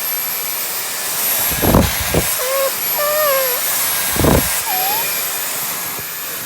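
Vacuum cleaner running steadily with a high-pitched motor whine, with a few dull knocks and short squeaks near the middle as it is pushed around.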